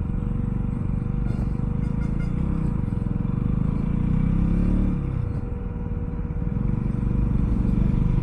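Motorcycle engine labouring up a steep hill climb under load, its pitch rising and falling for a while partway through, with a faint steady whine underneath.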